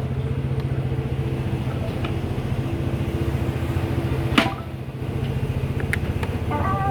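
Vehicle engine idling steadily, with a sharp click about four seconds in and a few faint ticks at uneven spacing.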